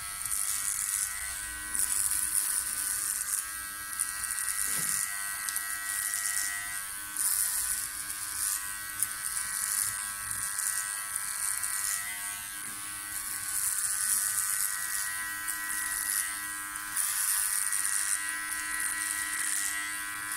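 Powertec TR 1700 cordless hair clipper running with a steady buzz, its blades cutting thick, dense hair in repeated strokes up the back of the head. The cutting rasp swells and fades every second or two as each pass goes through the hair.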